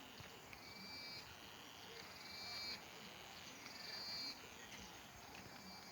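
A small animal's short, high-pitched trilling call, repeated three times about a second and a half apart, over faint outdoor background noise.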